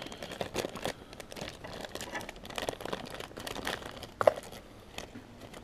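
Clear plastic parts bag crinkling and crackling irregularly as it is handled, with one sharper tap about four seconds in.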